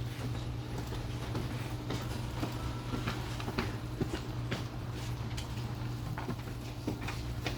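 Office ambience: a steady low hum with scattered small clicks and knocks, such as desk objects being handled.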